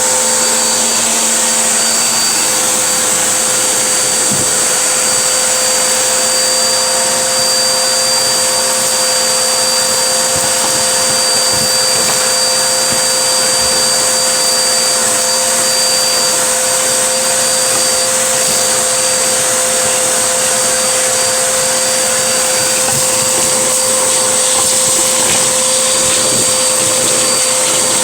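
Vacuum cleaner running steadily: an even motor whine with a thin high tone over a hiss of rushing air.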